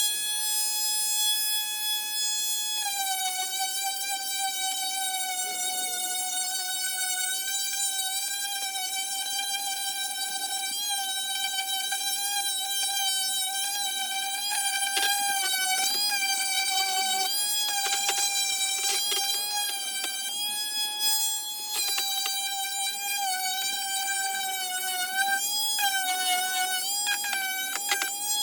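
Electric power sander running with a steady high whine, its pitch dipping and wavering slightly as it is worked against the painted wood, with a few short knocks.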